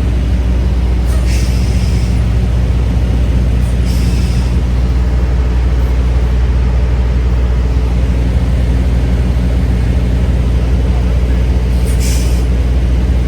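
Semi-truck diesel engine idling with a steady low drone, broken by three short hisses of air brakes releasing air: about a second in, around four seconds in, and near the end.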